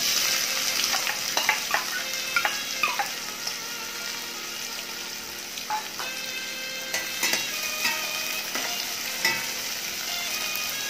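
Chopped onions hitting hot oil with fried cumin seeds: the sizzling starts suddenly as they go in and keeps up while a spatula stirs them, with short scrapes and clinks of the spatula against the pan.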